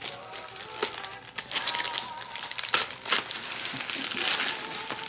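Gift wrapping paper crinkling and tearing as a present is unwrapped by hand, with a run of sharp crackles and rips that grows denser and louder toward the end.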